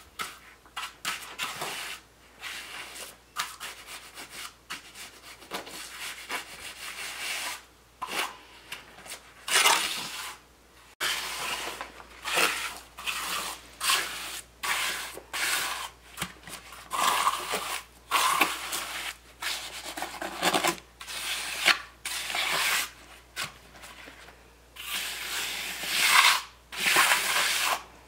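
Hand trowel scraping across wet concrete in a countertop form, spreading and smoothing it in repeated strokes about one a second.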